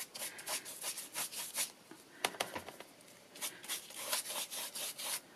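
Stiff-bristled brush dry-brushing over textured, dry acrylic paint on card: a run of quick, scratchy back-and-forth strokes, with a quieter stretch about halfway before the strokes pick up again.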